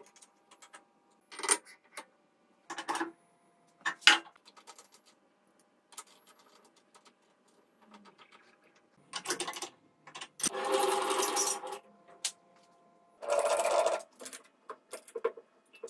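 Metal tools handled at a benchtop milling machine: a few sharp steel-on-steel clinks in the first four seconds, then three longer rattling, scraping stretches in the second half.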